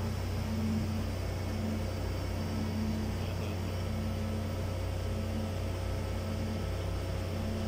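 Varimixer commercial mixer running steadily with its gear housing open: an even motor-and-gear hum. The drive has a new bearing, shaft and belt, and the owner judges it okay now.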